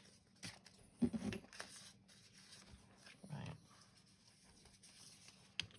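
A dog making two short, quiet vocal sounds, the louder about a second in and another a little past three seconds, with a few faint clicks between them.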